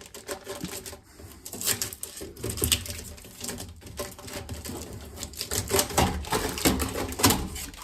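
Irregular clicks and rattles of a dented sheet-metal dryer-vent exhaust piece being handled.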